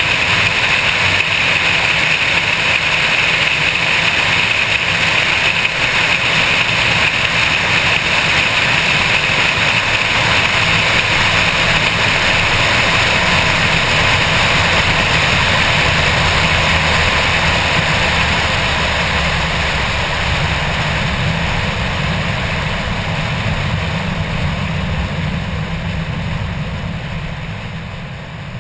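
Car travelling at speed: steady rush of wind and road noise over a low engine drone. It grows gradually quieter over the last ten seconds as the car slows.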